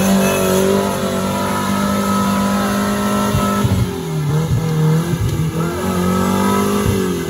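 Off-road 4x4's engine revving hard while driving through mud: held at high revs for about three and a half seconds, then the revs dip and climb again several times and drop away near the end.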